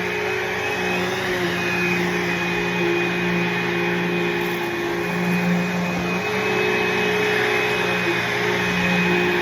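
Bissell CleanView II bagless upright vacuum cleaner running steadily: a continuous motor hum with a high whine, its pitch wavering slightly.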